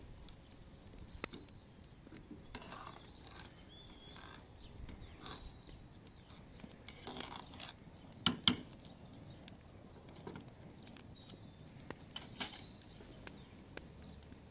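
Metal spoon clinking and scraping in a cooking pot, with a metal pot lid clanking twice in quick succession about eight seconds in. Faint chirps sound now and then in the background.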